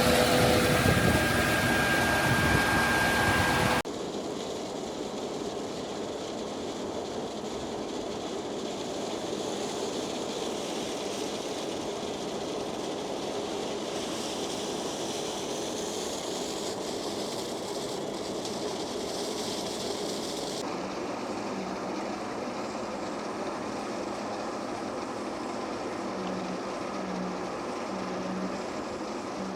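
Heavy construction machinery running steadily. The first few seconds are loud, with a steady whine and hum; after a cut it becomes quieter, even machine noise.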